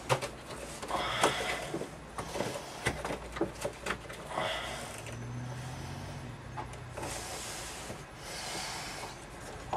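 Handling noise from a plastic receiver fitting being hand-tightened into a boat's helm panel: scattered clicks and knocks with short scraping rasps as the back nut is turned on. A low hum comes in briefly in the middle.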